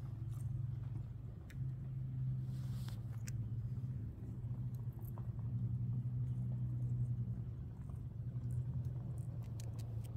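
A low, steady rumble with faint scattered clicks over it, and a brief hiss about two and a half seconds in.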